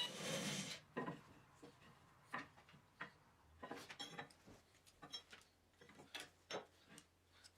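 A loud hiss cuts off just under a second in, followed by scattered light clicks and clinks of metal, a few with a short ring.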